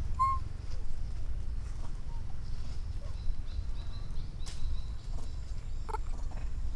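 Baby monkey giving short, high squeaking calls, one just after the start and another near the end, over a steady low rumble.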